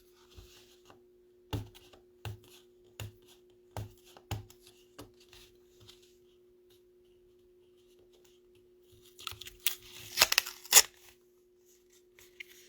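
A sealed trading-card mini box being worked open by hand: a series of light taps and knocks on the packaging, a pause, then a burst of tearing and crinkling as the wrapper gives way, over a faint steady hum.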